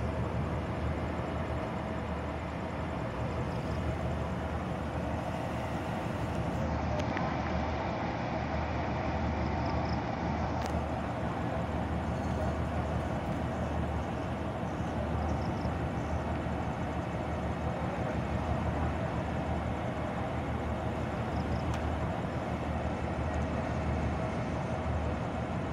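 Hitachi diesel-electric locomotive's engine running as it draws slowly closer at the head of a passenger train: a steady, throbbing low rumble with a hum above it.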